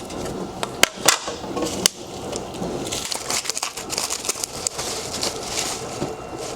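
Packaging being handled: crinkling and rustling of wrapping with a few sharp knocks in the first two seconds, then denser crackling.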